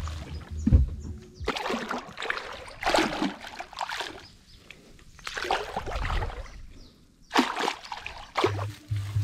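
Water splashing and sloshing in irregular bursts around a floating stone block bobbing in the water.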